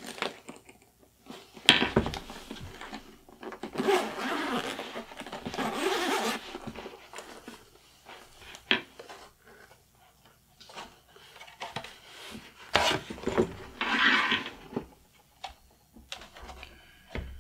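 Handling noise from a stenograph machine and its hard-shell carrying case: a sharp knock about two seconds in, a few seconds of rustling and scraping, then scattered clicks and taps as the machine is taken out of the case and its screen raised.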